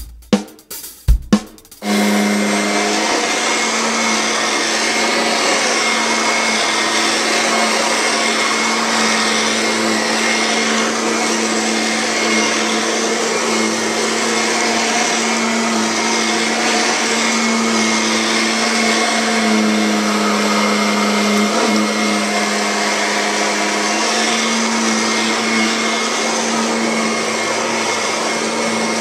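A short burst of drum hits, then a vacuum cleaner starts up about two seconds in and runs steadily, its hum wavering slightly in pitch now and then.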